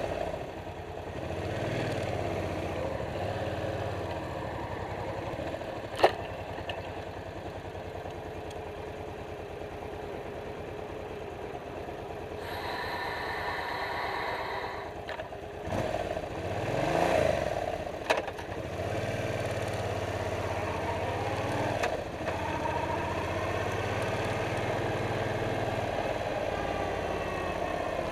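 Suzuki Boulevard C50's V-twin engine running on a ride, picked up at the front bumper with wind and road noise. There is a single sharp knock about six seconds in. A little past halfway the engine pitch rises and falls for a couple of seconds before it settles back to steady running.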